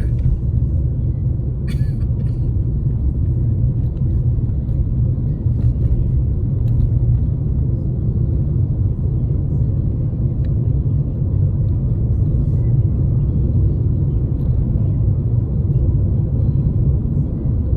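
Steady low rumble of a car driving, engine and road noise heard from inside the cabin, with one short click about two seconds in.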